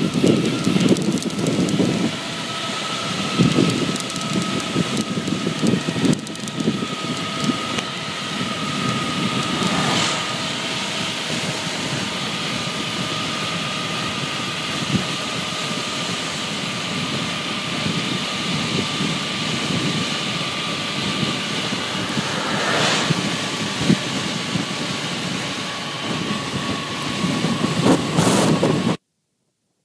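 Wind rushing over a phone's microphone on a fast downhill bicycle descent, with gusty swells and a thin steady whistle running through it. The sound cuts off abruptly near the end.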